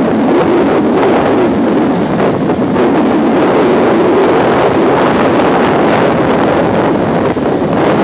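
Wind buffeting the microphone, loud and continuous, over the steady diesel running of hydraulic excavators digging and moving dirt.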